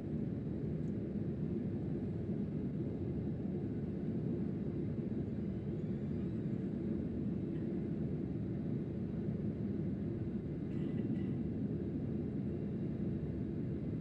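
Steady low roar inside the cabin of a Boeing 737-800, from its CFM56 jet engines and the aircraft's running systems.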